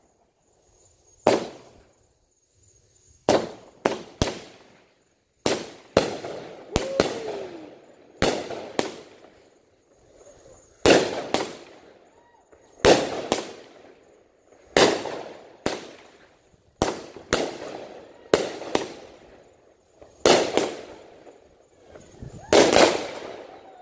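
Aerial fireworks going off one after another: about twenty sharp bangs, often in close pairs a fraction of a second apart, each trailing off in an echo.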